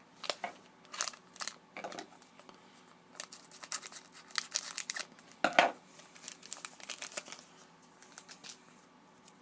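Plastic wrapper of a Panini Contenders hockey card pack being torn open and crinkled by hand, in irregular crackly bursts, the loudest about halfway through.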